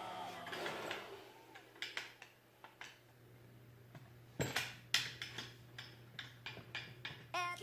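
Scattered metal clinks and taps of hand tools on car door hinge parts, with one sharper knock about four and a half seconds in, over a faint steady hum.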